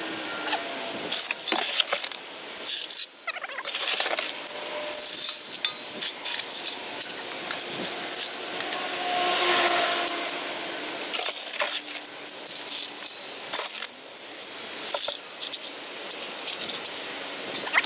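Small white landscape stones clattering and crunching around the foot of a metal mailbox post as they are set and pressed in with a shoe. There are many quick clicks throughout, with a longer rush of stones about nine to ten seconds in.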